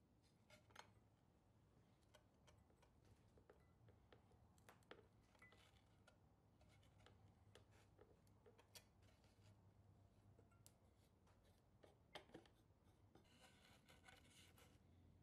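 Near silence with faint, scattered clicks and taps of a steel C-clamp and a small metal bracket being handled against a wooden board, and a short rustle near the end.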